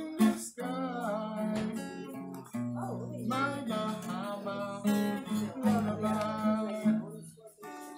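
Strummed acoustic guitar accompanying a sung vocal melody.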